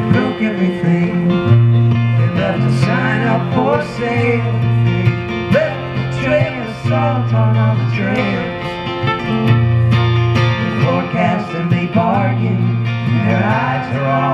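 Live duo playing a song on acoustic guitar and amplified electric guitar, with a singing voice over held low notes that change every second or two.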